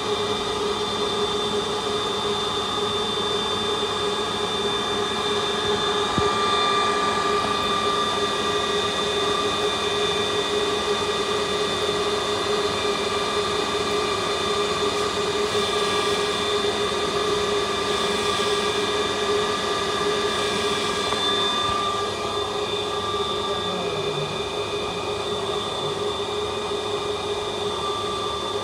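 CNC lathe running with a steady mechanical whine from its spindle drive while a turning tool cuts a steel bar held between chuck and tailstock centre. It gets a little quieter about three-quarters of the way through.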